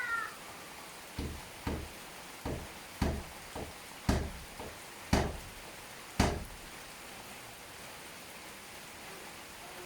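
Steady rain with a run of about ten irregular dull knocks in the first two-thirds, each dying away quickly.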